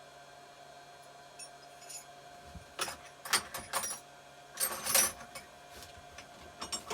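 Metal hand tools clinking and rattling together as a chisel is picked out, in two clusters of sharp clinks about three and five seconds in.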